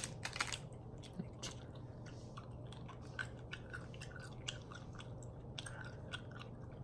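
Faint chewing of gum: small, irregular wet clicks of a mouth working a piece of gum, over a steady low hum.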